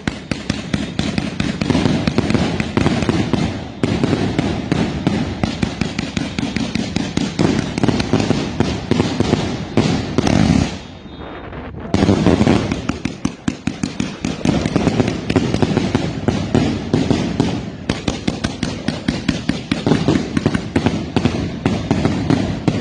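Fireworks cake firing: a rapid, continuous run of pops and crackles from its shots. It breaks off for about a second near the middle, then resumes.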